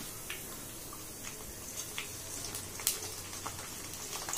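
Besan sev (omapodi) frying in hot oil in a kadai: a steady sizzle and bubbling, with a few sharp clicks as the steel ladle turns the batch. The oil is still bubbling, the sign that the sev is not yet done.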